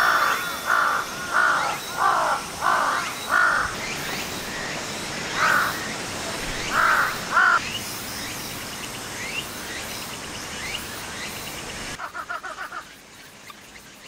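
A crow cawing: six loud caws in quick succession, then three more a few seconds later, with smaller birds chirping faintly behind.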